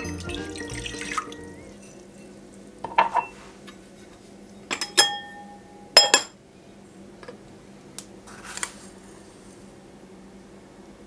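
Background music ends about a second in, then kitchen sounds: a few sharp clinks of dishes with brief ringing, and short splashes of water.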